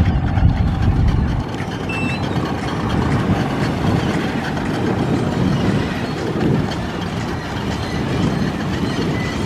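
Steady vehicle engine noise mixed with wind. A heavy low rumble eases about a second and a half in, and a single short high beep sounds about two seconds in.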